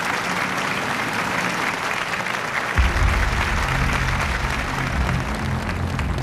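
Audience applauding; about three seconds in, music with deep, sustained bass notes comes in under the clapping.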